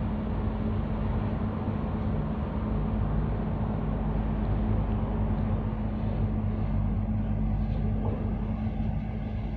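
Container ship under way close by, its engines a steady low drone with a constant hum.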